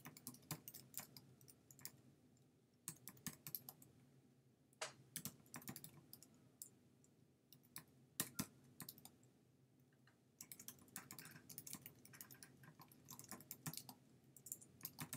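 Typing on a computer keyboard: quick runs of soft keystroke clicks, broken by short pauses of about a second, with a denser run of typing over the last few seconds.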